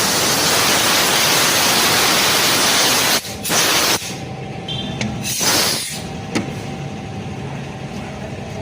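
Loud steady hiss of a pressurised spray that cuts off about three seconds in, followed by two short bursts of spray, then a low steady mechanical hum.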